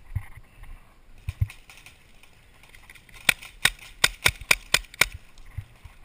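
Paintball marker firing a rapid string of about seven shots in under two seconds, after a few fainter pops earlier.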